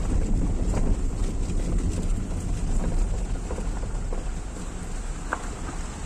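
Wind buffeting the microphone: a steady, uneven low rumble with a thin high hiss over it and a few faint clicks.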